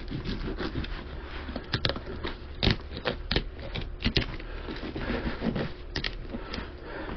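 Fillet knife cutting and scraping through a sheepshead, giving a run of irregular clicks and scrapes.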